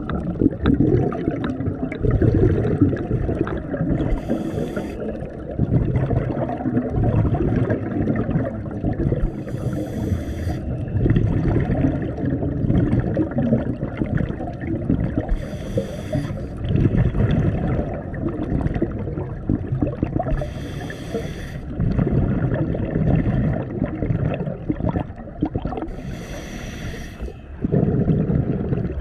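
Scuba diver breathing through a regulator underwater: a short hiss about every five to six seconds, over a steady low rumble of bubbles and moving water.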